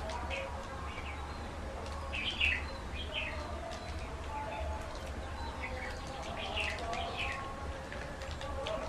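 Small clicks and mouth sounds of people eating soft cake with wooden spoons, over birds chirping in short bursts in the background and a steady low hum.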